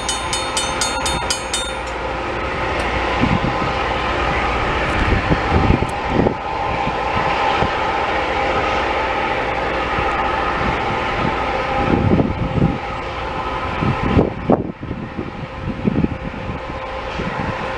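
Loram rail grinding train grinding the rails as it passes and moves away: a loud, steady grinding noise with steady whining tones in it, and a few low rumbles.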